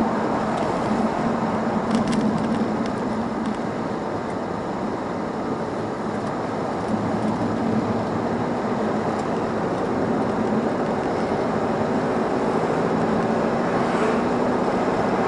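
Road noise inside a moving car: steady tyre roar and wind with a low engine hum, which eases off for a few seconds and then comes back as the car speeds up again.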